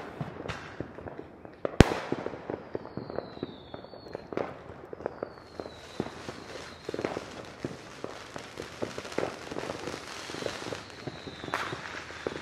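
Neighbourhood consumer fireworks and firecrackers going off: a steady crackle of pops and bangs, with one sharp, loud crack about two seconds in and a few high whistles that fall in pitch.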